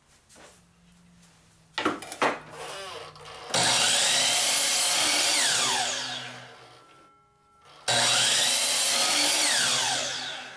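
Miter saw started twice, each time jumping straight to full speed to cut a small scrap of plywood, then winding down with a falling whine as the blade coasts to a stop. A few sharp knocks from handling the wood come before the first start.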